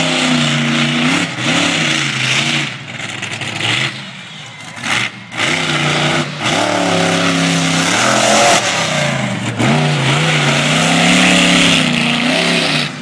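Monster truck engine revving in several loud bursts, the pitch climbing and dropping with each throttle push, over a steady rushing noise.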